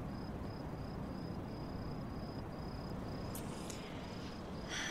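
A cricket chirping steadily, a high single-pitched chirp about three times a second, over a low background hum. A soft rustle comes near the end.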